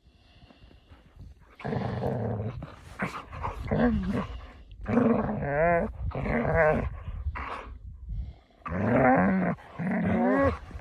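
Dogs play-fighting, one growling in a series of bursts about a second long, each with a wavering pitch, as it mouths the other's neck: play growls rather than aggression.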